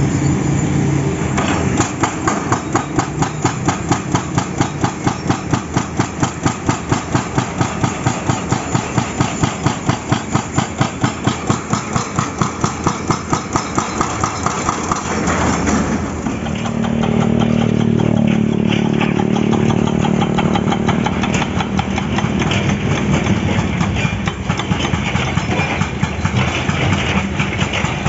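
Hydraulic breaker hammer on an excavator pounding asphalt and rock in a fast, even rhythm of about four blows a second. A little past halfway the hammering stops and the excavator's diesel engine keeps running steadily.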